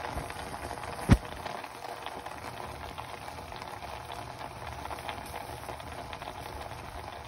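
Chicken wings steaming in a pot with a little water, giving a steady bubbling hiss. A single sharp knock sounds about a second in.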